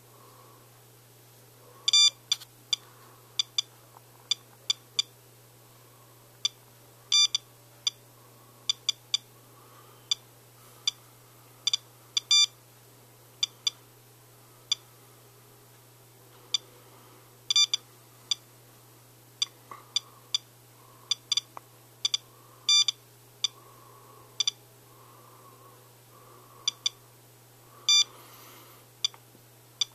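SOEKS radiation dosimeter beeping at irregular, random intervals, sometimes twice in quick succession. Each short beep marks one particle counted by its Geiger tube as it measures a rain sample reading about 0.5 microsieverts per hour, roughly three times normal background.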